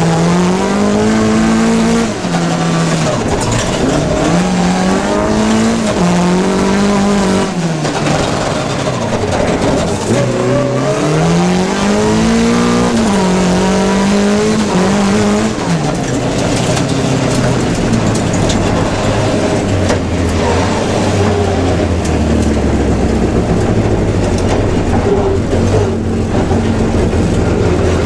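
Rallycross car engine driven hard, its pitch climbing and dropping again and again with each gear change. About halfway through it settles into a steadier, lower note over a deep rumble.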